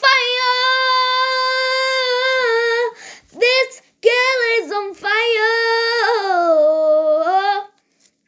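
A young girl singing unaccompanied, on long held vowels: one note held for about three seconds, a short note, then a longer phrase that drops in pitch about two-thirds of the way through and breaks off shortly before the end.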